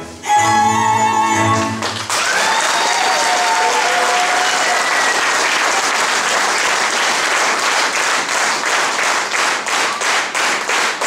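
Hungarian folk dance music, with fiddle, ends about two seconds in. Audience applause and a few cheers follow, turning into rhythmic clapping in unison near the end.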